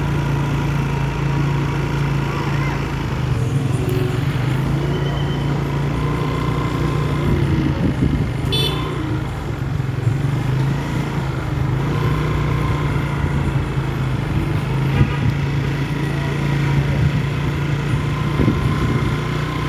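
Vehicle engines running on the road with a steady low drone, and brief horn toots now and then, one short high toot about eight and a half seconds in.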